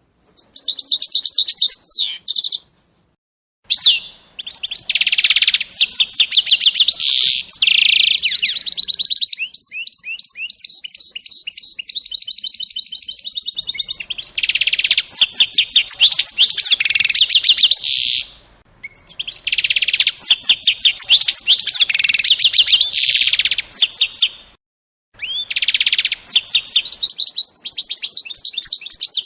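A small songbird singing a loud, continuous song of rapid trills and quickly repeated high whistled notes, broken by a few short pauses.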